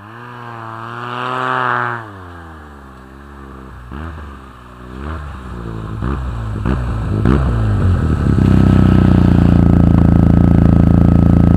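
Arctic Cat snowmobile engine revving up and down as the sled rides over the snow and comes closer, then running loud and steady right alongside from about eight seconds in.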